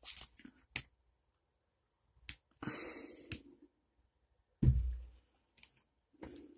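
Handling noise as a USB cable and a plastic phone charger are picked up and handled on a table: a few light clicks, a rustling scrape about three seconds in, and a heavy thump, the loudest sound, just under five seconds in.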